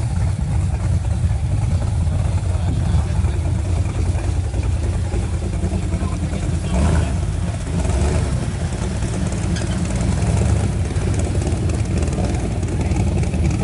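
Jeep Wrangler's engine running at low revs as it crawls up a rocky ledge, a steady low rumble.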